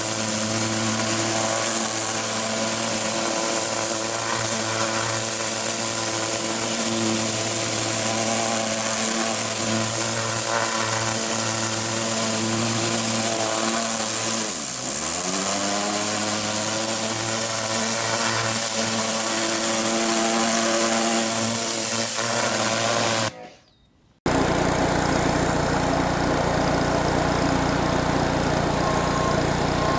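Petrol-engine pressure washer running steadily under the hiss of its high-pressure spray. About fifteen seconds in, the engine pitch dips briefly and recovers. Near the end the sound cuts off for about a second, then a different pressure washer runs with a lower engine note.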